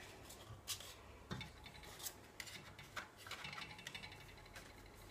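Faint, scattered light clicks and taps of dry lasagna sheets being laid against each other and the rim of a glass baking dish.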